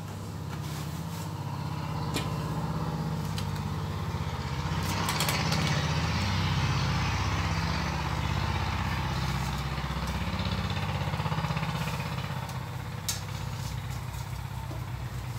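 Gas stove burner running with a steady low hum under a wok of hot water. About five seconds in, a louder spell of bubbling hiss comes as meat is tipped into the water to blanch.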